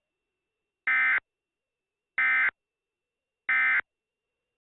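EAS end-of-message (EOM) SAME data tones: three short, identical electronic squawks about 1.3 seconds apart. They mark the end of the emergency alert broadcast.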